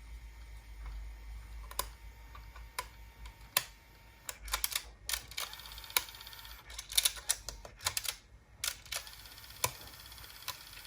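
Aiwa HS-PX303 cassette walkman's tape mechanism clicking irregularly, single clicks and quick clusters of clicks, as the faulty player malfunctions after being switched to play.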